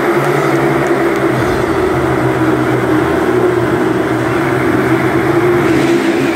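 Motorcycle engines running at a steady pitch inside a steel-mesh globe of death.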